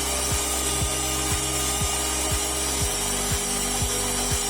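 Background electronic music with a steady kick-drum beat, about two beats a second, over sustained bass notes that change chord a little before the end.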